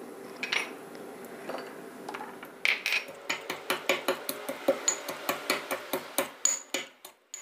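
Ginger and garlic being pounded with a pestle in a white stone mortar: a few light taps, then from about three seconds in a fast run of dull knocks, about three or four a second, that stops abruptly near the end.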